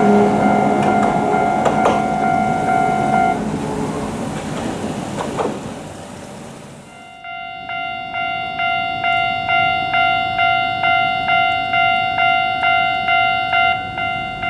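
A train runs past and fades away while a level-crossing warning bell sounds and stops about three seconds in. From about halfway, a Japanese level-crossing warning bell rings steadily, about one and a half strikes a second.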